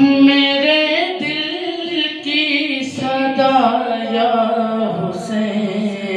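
A young man's solo voice singing a manqabat unaccompanied, in long drawn-out notes with ornamented turns of pitch that climb in the first half and settle lower towards the end.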